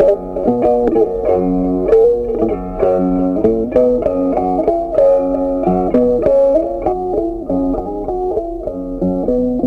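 Background music: plucked guitar playing a melody with a steady beat.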